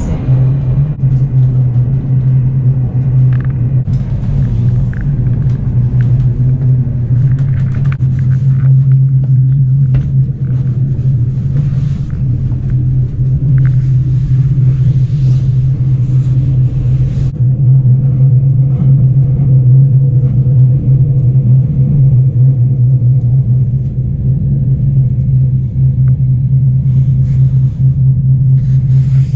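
Passenger train running, heard from inside the carriage: a loud, steady low rumble, with scattered clicks and brief high squeaks from the running gear.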